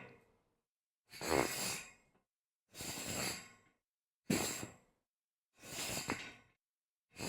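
Something sliding across a metal grate, a series of separate takes: four short scrapes of about a second each with silent gaps between, the tail of one just at the start and the next beginning near the end.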